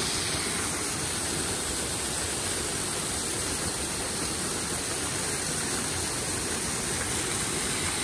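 Small waterfall cascading down a rock face into a pool: a steady, even rush of falling water.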